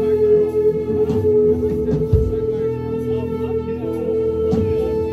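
Live rock band music: a held, sustaining electric guitar note drones under short sliding, wailing tones, with a few drum hits.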